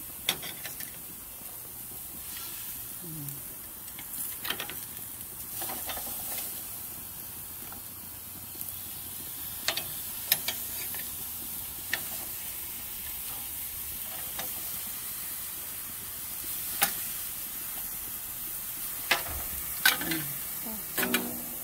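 Green mussels on the half shell sizzling steadily on a gas grill, with sharp clicks of metal tongs against the shells and grill grates every few seconds.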